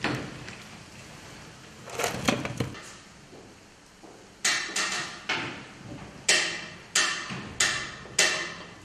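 Kitchen clatter: syrup splashing back into a steel pot off a skimmer at the start, then, from about halfway, a run of about seven sharp, ringing clanks of metal trays and utensils, irregularly spaced.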